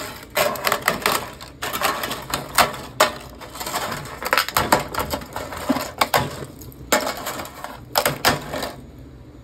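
Thin, crisp baked sheets of tapioca-starch cracker being snapped and crumpled by hand in a baking tray: a dense run of sharp cracks and crackles that stops near the end. The brittle snapping shows the sheets have baked and cooled fully crisp.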